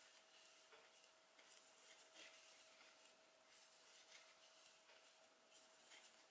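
Near silence with faint rustling and soft ticks of a thin metal crochet hook drawing acrylic yarn through stitches, over a faint steady hum.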